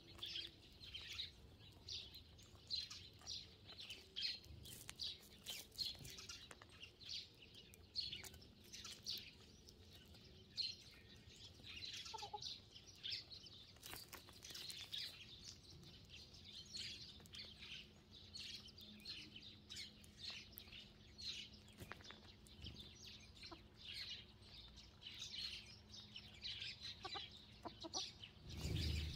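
Eurasian tree sparrows chirping busily in a steady stream of short, high chirps, with hens clucking softly now and then. A low thump near the end.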